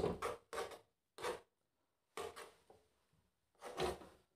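A metal spoon scraping against a metal saucepan while stirring cooked noodles: about half a dozen short, separate scrapes, unevenly spaced, with quiet between them.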